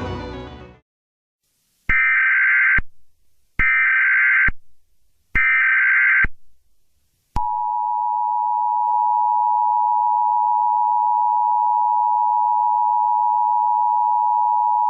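Emergency Alert System alert: three short bursts of warbling data tones (the SAME header), then the steady two-tone attention signal, held for about eight seconds. Background music fades out just before the first burst.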